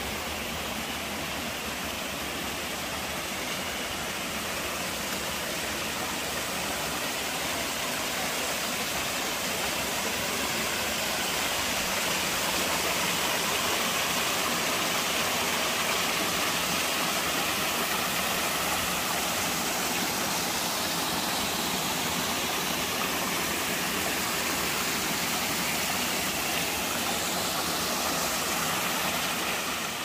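Small mountain waterfall pouring over rocks into a shallow stream pool: a steady rush of falling and splashing water, growing slightly louder about ten seconds in.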